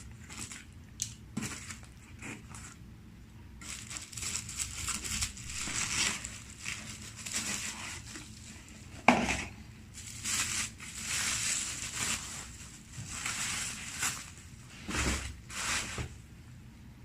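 Protective packaging being unwrapped by hand, with irregular crinkling and rustling and a sharp knock about nine seconds in, the loudest moment.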